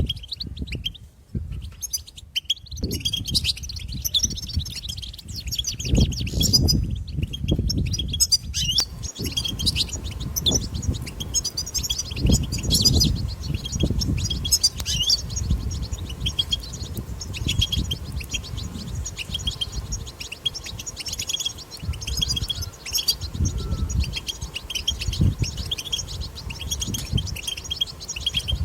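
European goldfinches twittering: fast, continuous high chirps and trills of the goldfinch's 'batbata' call, with a short lull about a second in. Low rumbling thuds run underneath.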